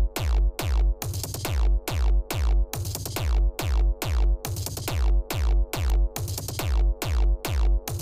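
Loud electronic club music played live. Heavy kick drums hit about twice a second in an uneven, stuttering pattern, each with a falling zap that sweeps down from very high to low.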